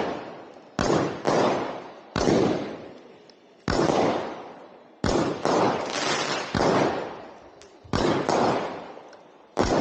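Fireworks fired at close range, most likely a multi-shot cake or barrage going off shot after shot: about ten sharp bangs, roughly a second apart and unevenly spaced, each trailing away before the next.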